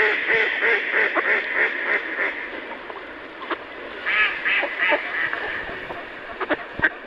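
Ducks quacking in a quick run of calls, then another short burst about four seconds in, with a few sharp clicks near the end, typical of a pond sound effect.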